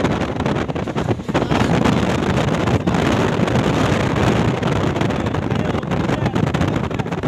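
Steady rush of wind buffeting the microphone over the running rumble of a moving road vehicle.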